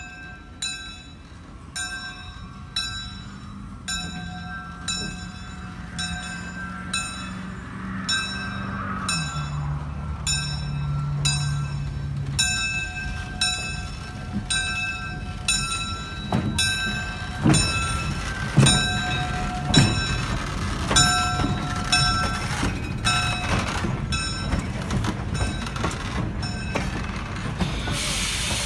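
An electric locomotive and a string of freight cars and cabooses roll slowly past, their wheels thudding over the rail joints as they go by. A bell rings evenly all the while at about one and a half strokes a second. A hiss of air starts just before the end.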